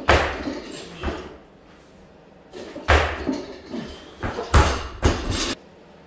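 Barbell loaded with bumper plates being lifted for hang power cleans: a series of about five thuds and clanks, a second or so apart, that stop suddenly near the end.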